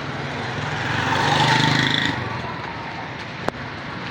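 A motor vehicle passing close by in street traffic, its engine growing louder and then dropping away about two seconds in, over steady street noise. A single sharp click near the end.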